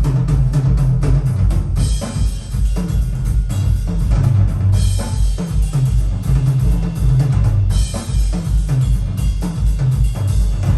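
Percussion-driven music played back through CSS Torii speakers: a steady pattern of drum hits with a heavy bass drum and snare, the low bass strong throughout.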